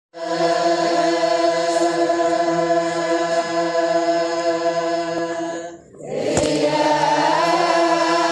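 Intro music of voices chanting in chorus on long held notes, with a short break about six seconds in before the chant resumes.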